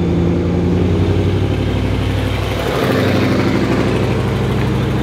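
A nearby engine running steadily at idle, with a slight change in pitch about a second in and again near three seconds.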